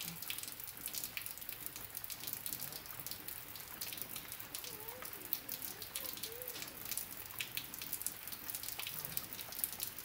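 Light rain pattering: many small, scattered ticks over a faint steady hiss.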